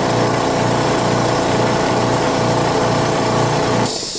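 Small air compressor motor running steadily with a low rhythmic pulse, then shutting off about four seconds in with a short hiss of air.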